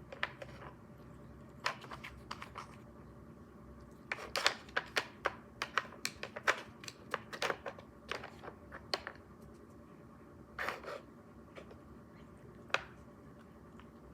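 Irregular light clicks and taps, a few at first, then a quick run of them for several seconds, with a brief scrape and a last single click.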